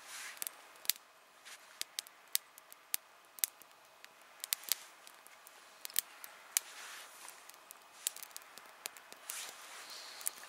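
Small campfire of freshly shaved kindling catching: irregular sharp crackles and snaps, with a few soft hissing swells.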